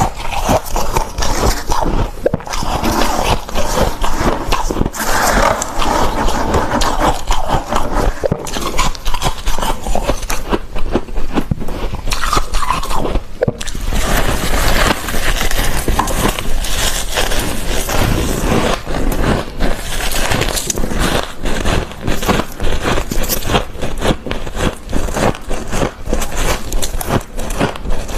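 Soft, fluffy freezer frost crunching and scraping close to the microphone, a dense unbroken run of small crackles as it is eaten.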